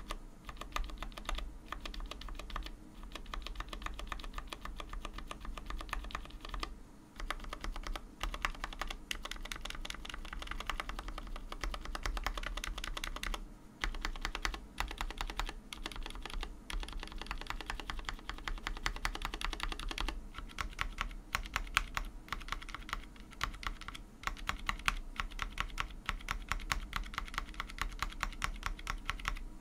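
The long stabilized keys (Backspace, Enter, Shift) of a mechanical keyboard with Gateron Black linear switches in a full-acrylic case, pressed over and over in quick succession: a dense run of clacks with a few short pauses. The reviewer finds the stabilizers almost free of wire rattle and spring ping.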